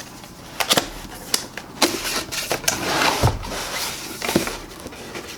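A cardboard product box being opened and handled by hand: several sharp clicks and knocks, with the rustle of cardboard and packaging between them.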